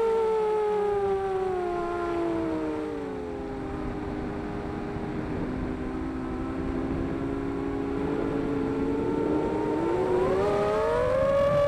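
Xbird 250 racing quadcopter's four brushless motors and 5x3 propellers whining in several close pitches. The pitch falls over the first few seconds, holds low, then climbs quickly near the end as it is throttled up.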